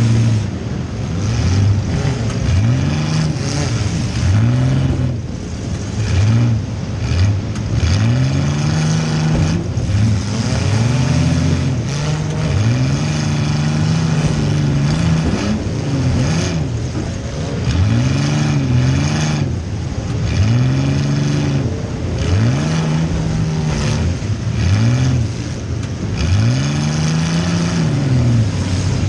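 Compact demolition derby car's engine, heard from inside the cabin, revving up and dropping back again and again in quick, repeated swells of pitch.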